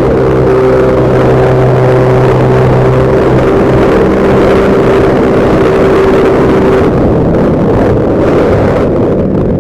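Motor scooter engine running steadily while riding, with wind rushing over the microphone; the engine's steady hum fades under the wind noise about seven seconds in.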